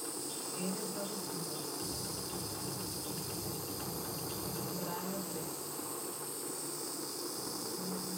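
Jeweller's gas soldering torch burning with a steady hiss as it heats a silver ring to flow easy solder under small balls of silver shot.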